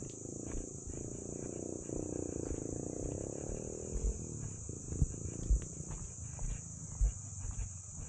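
Insects chirring steadily in the surrounding trees, with a long droning sound in the first half and several dull low thumps in the second half.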